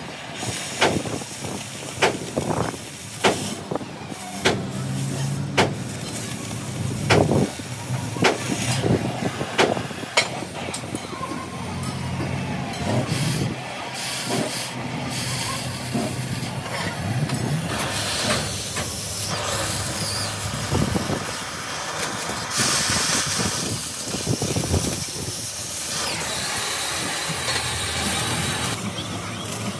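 A run of sharp knocks, roughly one a second, over a low hum, giving way about halfway through to a steady hiss that grows strongest near the end.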